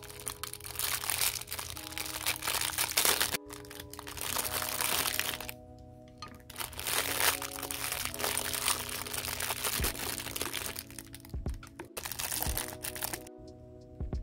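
Clear plastic packaging bags crinkling as hands handle them and pull small plastic figures and a display base out of them. The crinkling comes in bursts with short pauses.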